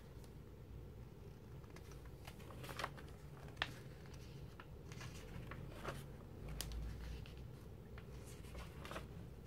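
Pages of a large glossy magazine being turned by hand: faint paper rustling with a few short, sharp flaps and taps as the sheets come over and settle.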